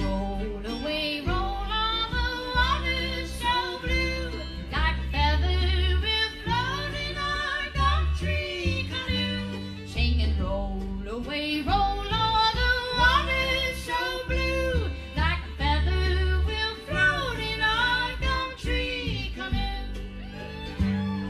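Live old-time string band playing: fiddle, upright bass, mandolin and acoustic guitar, with a woman singing high over the band and the upright bass notes prominent underneath.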